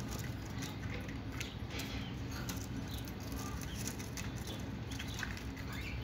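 Low steady background hum with soft scattered clicks and a few faint chirps from caged birds; no clear canary song.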